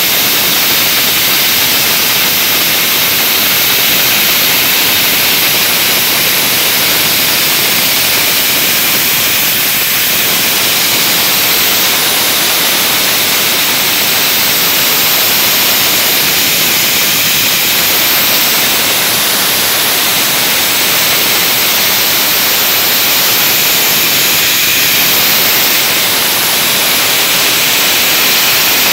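Dry-ice blasting gun firing a continuous jet of compressed air and dry-ice pellets, a loud steady hiss, as it strips limescale from an aluminium tread plate.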